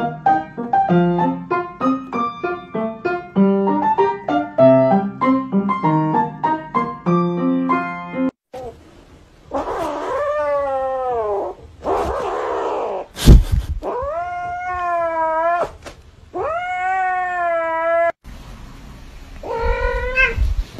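Background music with quick, short notes for the first eight seconds or so, then a cat's three long, drawn-out meows, with a sharp click between the first two. A shorter meow comes near the end.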